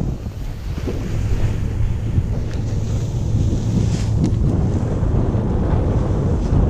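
Steady wind buffeting a camera microphone in paraglider flight: a loud, low rushing rumble from the airflow, with a few faint ticks.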